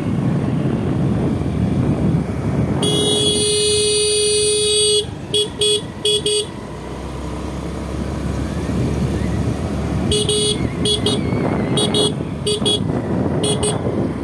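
Vehicle horn honking over the steady running noise of a motorcycle on the move: one long blast of about two seconds, then three quick toots, and a few seconds later a run of short toots in quick pairs.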